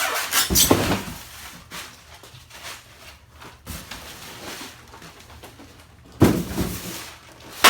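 Styrofoam packing and cardboard box being handled: irregular rustling, rubbing and scraping, louder in the first second, with a heavier knock about six seconds in.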